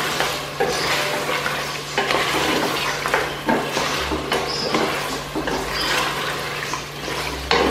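Wooden spoon stirring and scraping chunks of fried potato and mutton through a thick curry in a stainless steel pot, with repeated knocks of the spoon against the pot and the masala sizzling as it fries.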